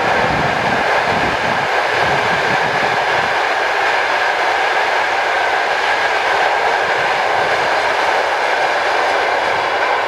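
Passenger coaches of an electric-hauled express train passing at speed: a steady rush of wheels on rails, with irregular low thumps in the first few seconds.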